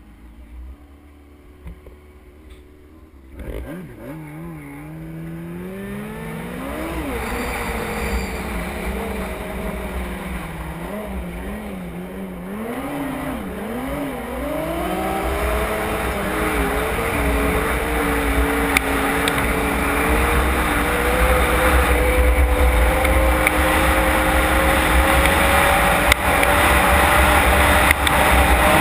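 Yamaha Apex snowmobile's four-cylinder four-stroke engine running faintly, then about three seconds in revving up; its pitch rises and falls several times as it pulls away, then climbs steadily as the sled accelerates. A low rumble of wind on the microphone grows with speed.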